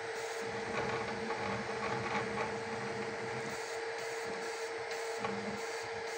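FLsun Super Racer delta 3D printer printing: its motors whir in shifting low tones as the arms move the print head, over a steady hum and fan hiss.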